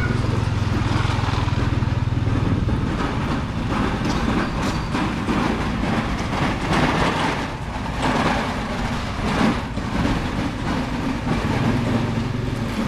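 Street traffic noise: a vehicle engine running with a steady low hum, easing off through the middle while clatter and street bustle take over, then returning near the end.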